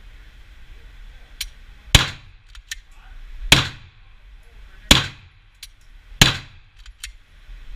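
Glock 17 9mm pistol fired four times at a slow, even pace, about one shot every second and a half, each shot with a short echo.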